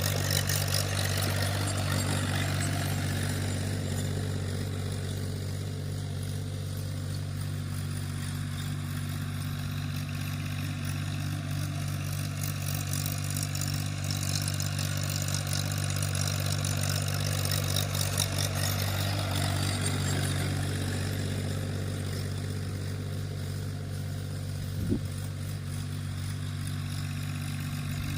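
Tractor's diesel engine running steadily while ploughing the field, with one brief knock near the end.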